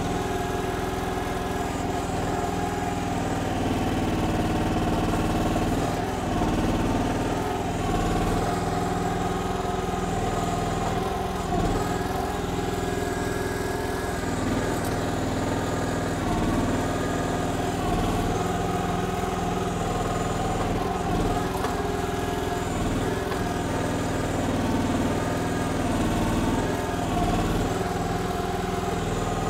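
Briggs gas engine of a KYMRON XH14 mini excavator running steadily while digging, its note rising and falling slightly every few seconds as the hydraulics take load.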